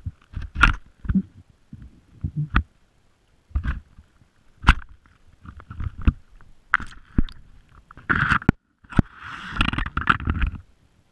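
Underwater sound heard through a GoPro's waterproof housing as a fishing magnet on its rope is lowered into a dock: irregular muffled knocks and clicks of the magnet and camera bumping against the submerged concrete dock wall. A longer rough scrape comes about eight seconds in.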